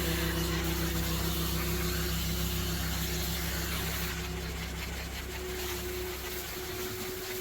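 Vacuum motor running steadily, a low hum under an even hiss, easing slightly quieter toward the end.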